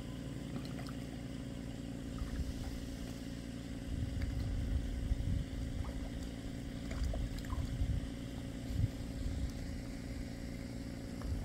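A motor running steadily with a low, even hum, with irregular low rumbling swells from about four to nine seconds in.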